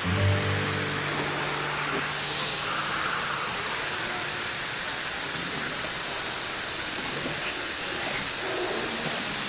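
Rectavit contact adhesive sprayed from a pressurised canister through a hose-fed spray gun, its trigger held open for one continuous pass: a steady, even hiss.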